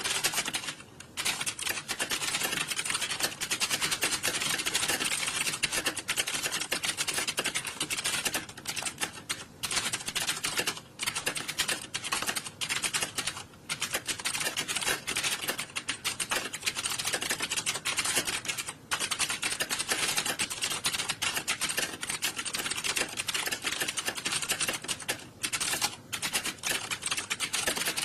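Many computer keyboards being typed on at once, as in an exam hall: a dense, continuous clatter of overlapping key clicks, with a few brief lulls.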